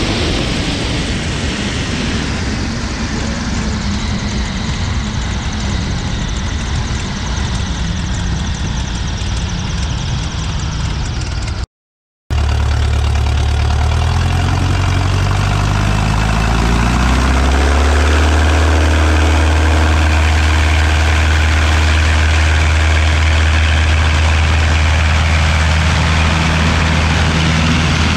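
Bücker Jungmann biplane's engine and propeller on the runway, heard under a heavy rush of wind at first. After a short break, the engine note rises over about five seconds as power comes up for takeoff, then holds steady at full power.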